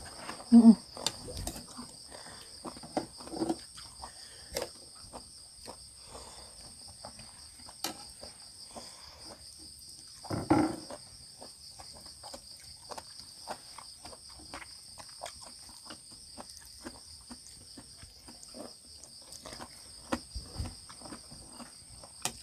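Crickets and other night insects chirring steadily at two high pitches, with scattered small clicks and taps of eating and dishes. A brief louder sound comes about ten seconds in.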